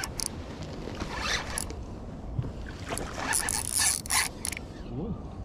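Clattering and rustling as gear is handled aboard a small fishing boat, a few knocks densest in the middle of the stretch, over a steady low rumble of wind and water.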